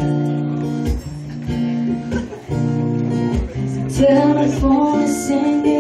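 Acoustic guitar strumming chords in a steady rhythm, with a voice singing along from about four seconds in.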